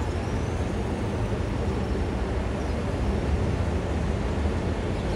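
Diesel railcar running, a steady low rumble as the unit rolls slowly along depot tracks.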